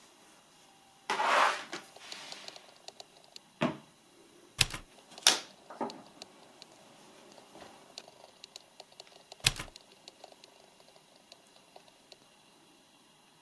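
Hand tools being set down and arranged on a wooden table and cutting mat: a rustle about a second in, then a handful of sharp wooden knocks and light clicks, the loudest knocks between three and six seconds in and once more near ten seconds.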